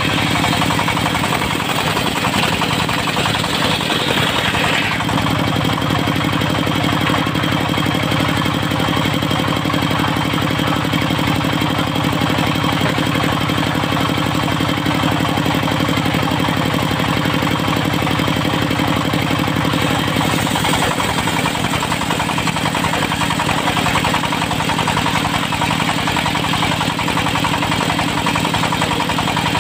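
Diesel engine of a locally built portable circular sawmill running steadily. A higher hiss over the engine in the first five seconds stops about five seconds in.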